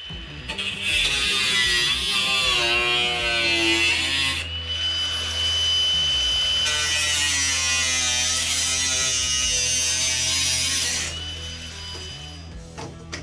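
Angle grinder with a cutting disc cutting into the rusted sheet-steel cowl plenum in two long passes, its pitch wavering under load. Between the passes it runs free with a steady high whine, and it winds down after about eleven seconds.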